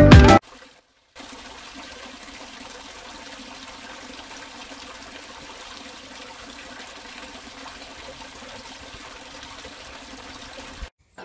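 Background music cuts off just after the start; after a short gap, a small trickle of water falls from a mossy rock ledge into a pool with a steady, soft splashing.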